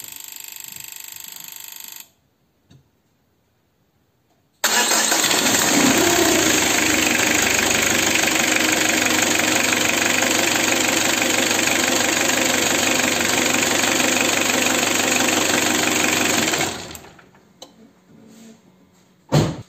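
Citroën Jumpy's 1.9 DW8 diesel engine starting and running steadily for about twelve seconds, then dying away, with its Delphi injection pump freshly refitted and the fuel circuit primed. A brief steady hum comes before it, and there is a single thump near the end.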